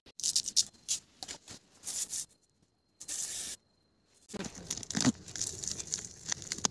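A machete chopping through leaf stalks while large fresh leaves are torn, handled and bundled: a run of short rasping, tearing and rustling strokes.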